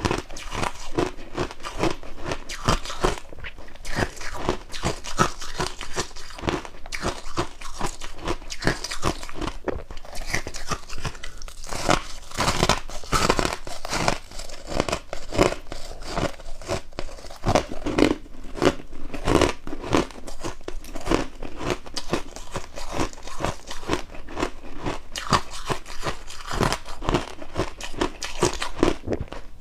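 Close-up chewing of powdery freezer frost, a dense run of rapid crisp crunches that keeps going.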